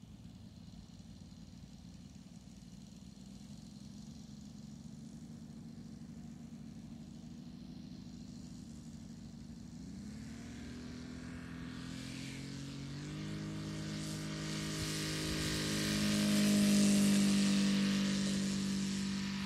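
The Saito FG-60R3 three-cylinder four-stroke radial engine of a 1/5-scale RC Focke-Wulf 190 D9 idling steadily, then throttled up about halfway through, its pitch rising in steps. It gets louder, loudest near the end as the model rolls for takeoff.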